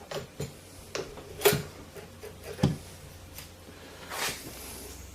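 Scattered knocks and clicks of a small handheld rotary drill being handled and fitted into a homemade mini drill-press mount, with a soft brushing rustle about four seconds in.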